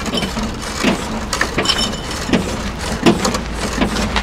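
An old Lada sedan's body and suspension creaking and knocking as several people rock it up and down, with irregular knocks about once a second over a steady low rumble.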